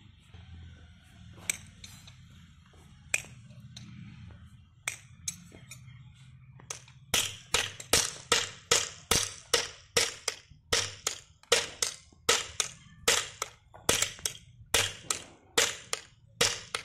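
Hammer blows on a metal shoe being nailed to a cloven hoof: a few scattered taps at first, then a steady run of sharp strikes, about two and a half a second, from about seven seconds in.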